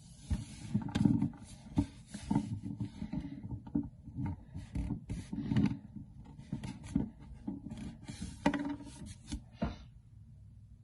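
Toys being handled: an irregular run of rubbing, scraping and small knocks that stops shortly before ten seconds in.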